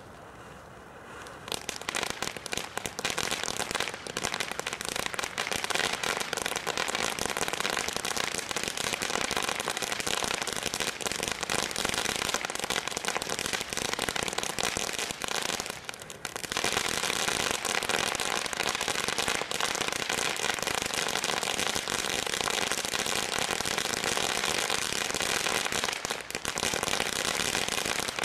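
Ground fountain fireworks spraying sparks, with dense, continuous crackling from crackling stars. It starts up about a second and a half in and eases briefly twice, just past halfway and again near the end.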